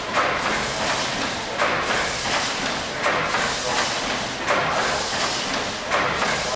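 1908 Platt Iron Works double-expansion Corliss steam pumping engine running slowly, a steady hiss with a surge about every second and a half as it works through its strokes.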